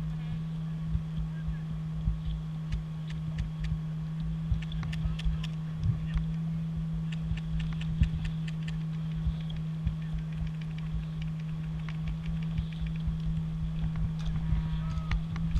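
A steady low hum with irregular wind rumble on the microphone, and scattered sharp clicks throughout.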